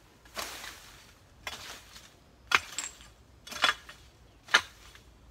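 A long-handled hoe chopping into the soil, five strikes about a second apart, each with a sharp clink of the metal blade.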